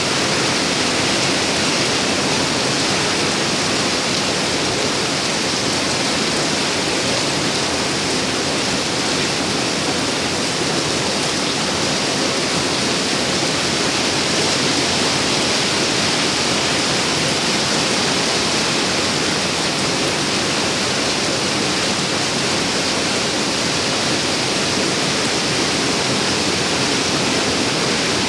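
Rain falling steadily, an even hiss with no breaks or distinct drops.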